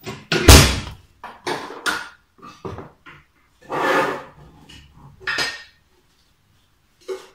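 Dishes and kitchenware clattering as they are handled on a kitchen counter: a run of separate knocks and clinks with short gaps, the loudest about half a second in and a longer clatter around four seconds in.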